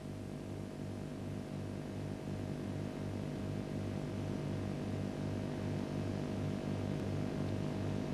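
Steady low hum that pulses evenly about four times a second, with a faint held tone above it, slowly growing louder.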